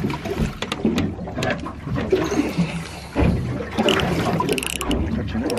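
Water slapping and sloshing against a boat's hull, with scattered clicks and a short high rasp about four and a half seconds in, as a spinning reel is wound in to play a hooked fish.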